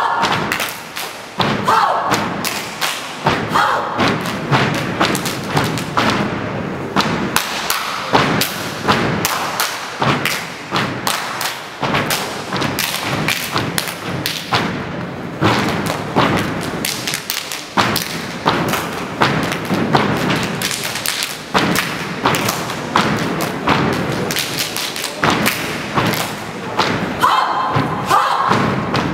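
Dance-routine music played loud over stage speakers, carried by a heavy, steady thumping beat, with snatches of vocals in the mix.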